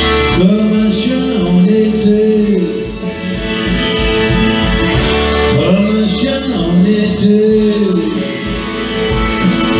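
Pop-ballad backing track with guitar, over which a man sings two wordless melodic phrases into a handheld microphone: one starting about half a second in, the other about six seconds in.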